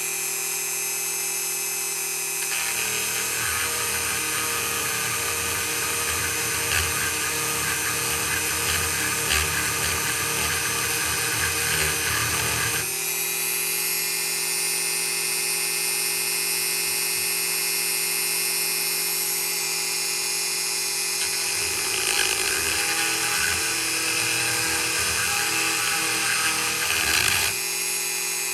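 Dremel rotary tool running with a steady high whine while grinding a sharpening choil into a steel knife blade. Twice, from about two seconds in to about thirteen and again from about twenty-one to twenty-seven seconds, it bites into the blade: a rough grinding rasp joins in and the motor's pitch shifts under the load.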